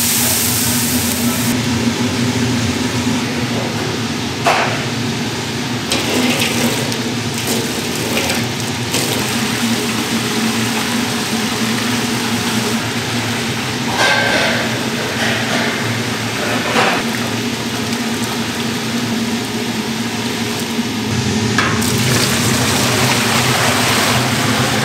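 Commercial kitchen noise: a steady hum of equipment under a continuous hiss, with a few scattered sharp knocks of utensils or pans. The hiss grows louder near the end.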